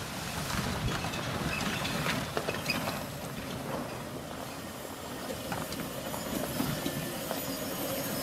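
Chevrolet Colorado ZH2 hydrogen fuel-cell pickup rolling slowly over a rough dirt trail: a steady rumble of tyres and suspension with scattered knocks and clatters.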